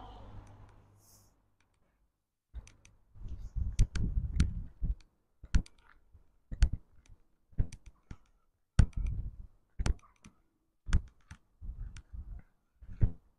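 Footsteps on a stone pavement: sharp clicking steps with a low thud, about one a second, starting a couple of seconds in.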